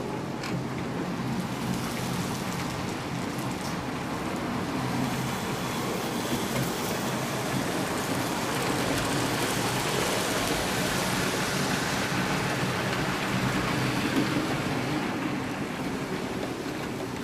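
HO scale model train running along the layout track, a steady rushing of wheels on rail over a low motor hum. It grows louder as the train comes close, then eases off near the end as it moves away.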